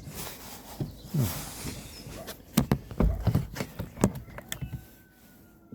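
Plastic door trim panel of a Hyundai Kona being handled and seated onto the door: a run of irregular knocks, clicks and low thumps of plastic against the door frame.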